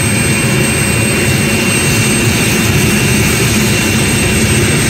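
UH-60 Black Hawk helicopter running on the ground with its main rotor turning. The twin turboshaft engines give a loud, steady high whine over the rumble of the rotor.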